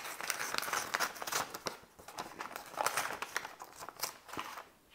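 Packaging and paper crinkling and rustling as a sealed puzzle guide is opened by hand, in irregular clusters of handling noise with short pauses between them.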